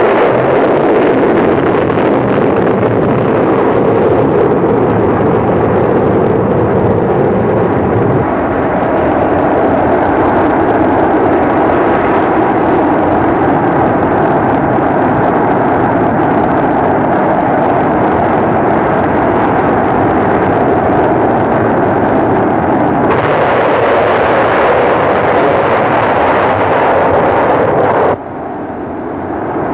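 Six solid-fuel Nike rocket motors propelling a locomotive down a track, a loud, steady rushing noise of rocket exhaust. The sound shifts abruptly about 8 and 23 seconds in and drops sharply in level near the end.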